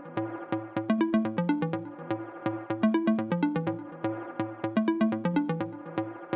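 Background music: an electronic track with a steady beat, drum-machine hits and a repeating bass and synth figure.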